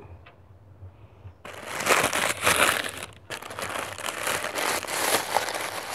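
Tissue paper rustling and crinkling as hands dig through and pull it out of a gift box, starting about a second and a half in, with a brief pause near the middle.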